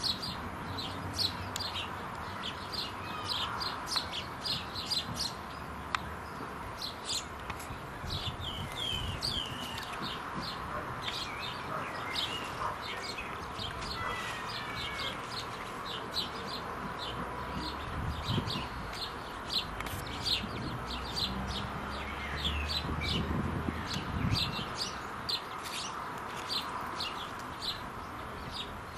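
House sparrows chirping: a busy, continuous stream of short, high chirps in quick succession.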